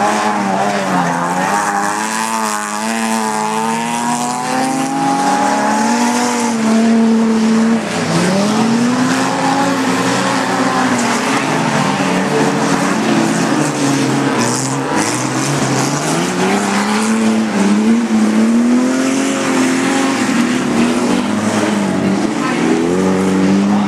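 Pack of standard-class autocross saloon cars over 1600 cc racing on a dirt track, several engines heard at once, revving up and dropping back as they accelerate and shift gears.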